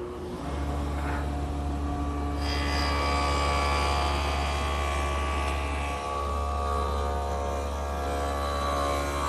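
Table saw fitted with a stacked dado head cutter, starting up and running with a steady motor hum; from about two and a half seconds in, a rougher, hissing cutting noise joins as the dado is cut into a wooden leg blank.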